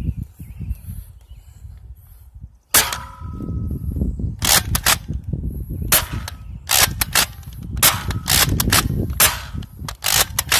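DartZone BallistixOps Powerball pump-action foam-ball blaster being pumped and fired repeatedly. From about three seconds in come sharp plastic snaps and clacks, about a dozen in all, many in quick pairs. A low rumble of wind on the microphone runs underneath.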